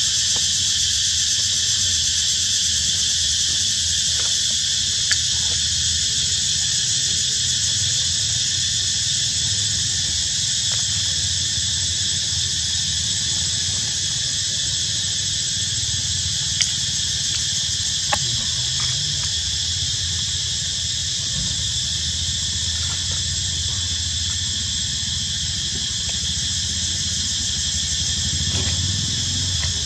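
Steady, high-pitched insect chorus droning without a break over a low rumble, with a few short clicks.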